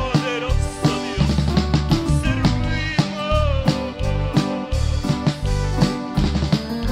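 Upbeat Christian band music: a six-string electric bass playing a walking line under a drum kit keeping a steady beat, with a lead melody that bends in pitch over the top.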